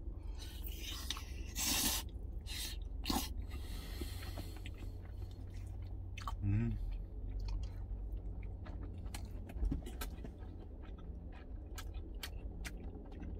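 A man chewing a whole fried egg with ketchup, taken in one bite, with wet mouth sounds and scattered small clicks. He gives a short hummed "mm" about six and a half seconds in, over a steady low hum.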